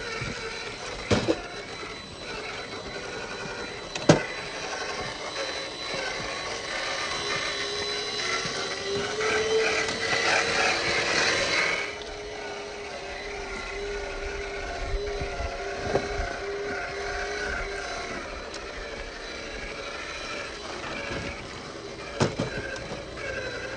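Traxxas TRX-4 Sport RC crawler's electric motor and geared drivetrain whining as it crawls over rock, the whine rising in pitch and getting louder from about eight to twelve seconds in. A few sharp knocks of tyres and chassis on stone.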